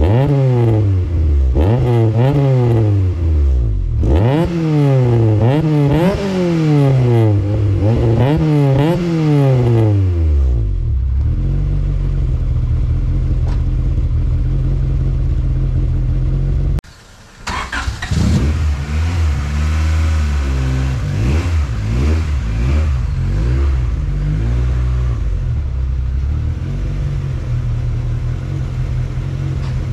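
Honda Civic's B16 inline-four running through a new 2.5-inch exhaust with a 200-cell cat and twin-loop muffler, heard at the tailpipe: a quick series of free revs, about one a second, each rising and falling, then settling to a steady idle. After a sudden break a little past halfway, it idles on with a few smaller throttle blips.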